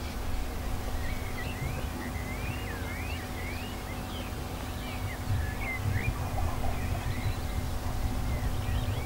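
Small birds chirping repeatedly, over a low rumble of wind on the microphone and a faint steady hum.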